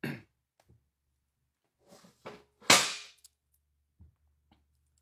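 Handling noise as someone gets up from a table and gathers things off it: a faint rustle, then one loud, sharp crack a little past halfway that dies away quickly.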